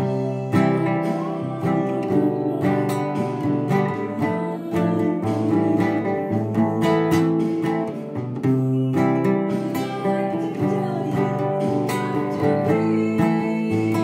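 Classical acoustic guitar played with strummed chords, several strums a second in a steady rhythm.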